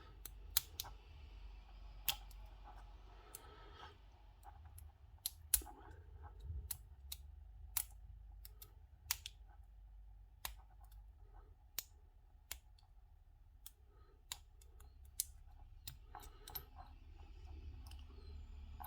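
Irregular small metallic clicks and taps of lock-picking tools, tension wrenches and picks, being handled, over a faint steady low hum.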